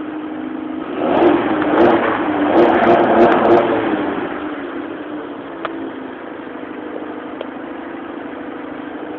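Freshly rebuilt Honda D16A8/9 four-cylinder engine running on only its second start. It idles, is revved up about a second in for roughly three seconds, then settles back to a steady idle.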